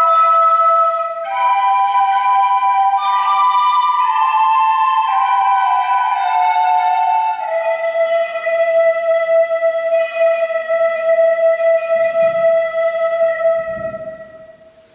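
Closing bars of a Russian folk song: a slow melody of sustained notes, settling about halfway into one long held chord that fades out near the end.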